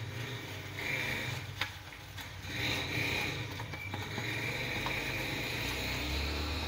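A metal spoon stirring thick gram-flour (besan) batter in a ceramic plate: wet scraping and sloshing with a few sharp clicks of the spoon against the plate, over a steady low hum.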